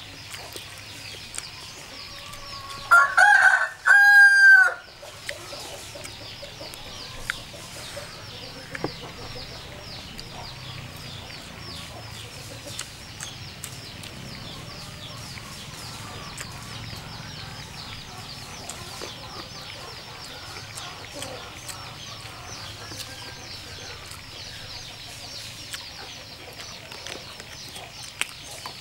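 A rooster crowing once, loud, about three seconds in and lasting under two seconds, over a steady low background with a few small clicks.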